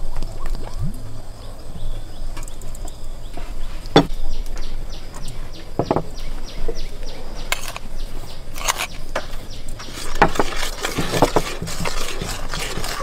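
A metal spoon knocking and scraping in a metal bowl as white starch powder is mixed with red syrup. There are sharp knocks about four and six seconds in, and a denser rubbing and scraping of the mix over the last few seconds.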